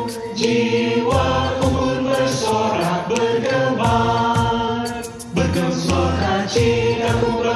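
Mixed choir of women and men singing a hymn in harmony, in sustained phrases with a short break about five seconds in.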